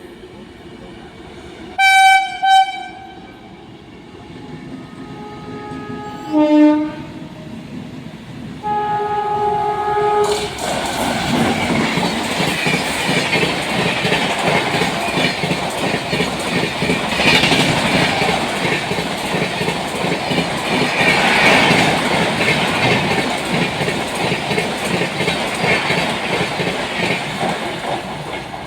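Express train approaching at speed, sounding its locomotive horn in two short toots, then another blast and a longer one. About ten seconds in, the train rushes past with loud rolling and clattering of wheels over the rail joints, easing slightly near the end.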